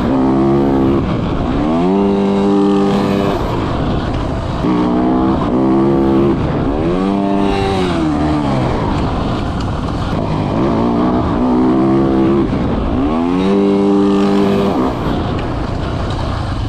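Motocross dirt bike engine being ridden hard: the revs climb, hold and drop off again about five times as the rider accelerates and backs off between jumps.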